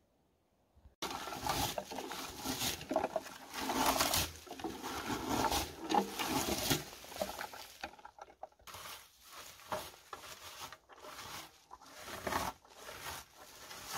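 Red plastic berry picker raking through bilberry bushes: a dense rustle of leaves and twigs with each stroke. It starts about a second in, and in the second half the strokes come separately, about two a second.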